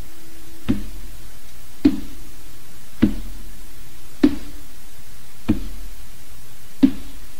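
Six slow, evenly spaced knocks, a little over a second apart, each with a brief low ring, over a steady background hiss.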